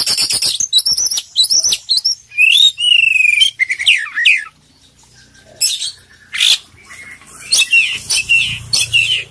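Oriental magpie-robin (kacer poci) singing a varied song full of mimicked phrases. It opens with a fast run of clicks, then whistled notes and a wavering trill, pauses briefly about halfway, then breaks into further loud phrases.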